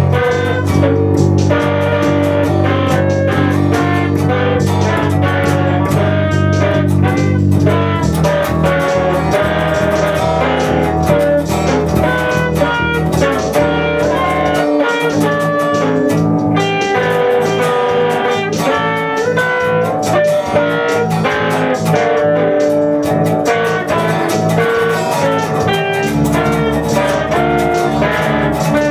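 Live band music led by guitar, playing continuously; the heavy low notes drop away about halfway through and come back near the end.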